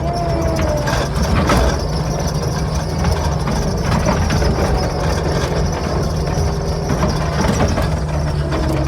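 Skid steer engine running steadily, with a few short metallic clanks.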